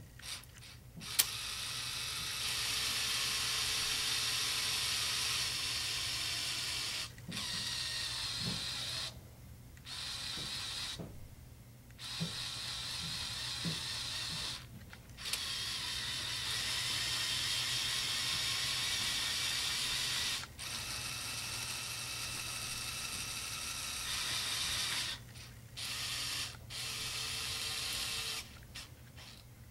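Small electric motors of a motorized Lego Technic excavator whirring through plastic gears as they drive the boom and arm actuators. They run in stretches of a few seconds, stopping and starting again about a dozen times, with a few faint clicks.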